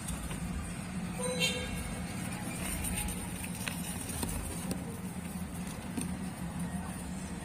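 Steady low background hum and rumble, with one short high-pitched tone about a second and a half in.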